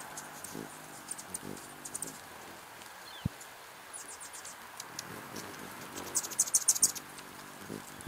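Hummingbirds giving sharp, high chip notes in quick series, loudest in a rapid run near the end, with short low buzzes of their wings as they come and go at the feeder. A steady patter of rain runs underneath, and there is a single sharp knock about three seconds in.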